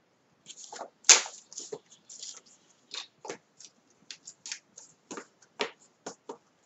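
Paper being handled on a craft table: a series of short crackles and rustles, with one sharp crack about a second in.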